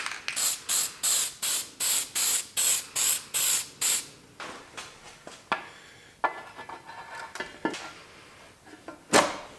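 Aerosol gasket sealant sprayed in about eleven short hissing bursts, roughly three a second, onto a multi-layer steel head gasket. This is followed by quieter clicks and handling of metal parts, and a single loud knock about nine seconds in.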